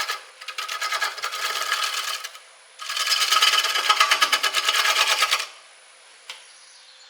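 Bowl gouge cutting a spinning, wet, out-of-round walnut log on a wood lathe: rough shearing passes with rapid even ticking as the tool meets the uneven surface each turn, in two passes with a short break. About five and a half seconds in the cutting stops and only the lathe's faint running hum is left.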